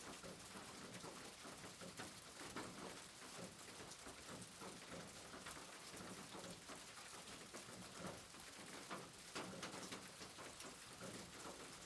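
Rain falling on a roof: a faint, steady patter of many separate drops tapping close by.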